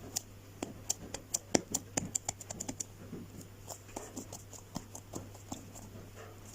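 Hands handling soft foam squishy toys: a string of small sharp clicks and taps, speeding up into a quick run of ticks about two seconds in, then thinning out.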